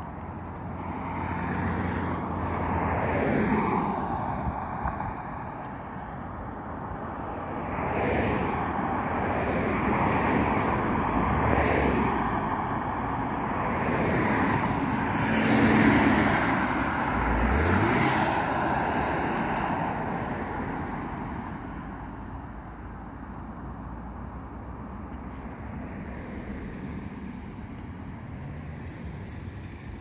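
Road traffic: cars driving through an intersection one after another in several swells, loudest around the middle, with one engine speeding up shortly after. The traffic then settles to a steadier, quieter hum for the last third.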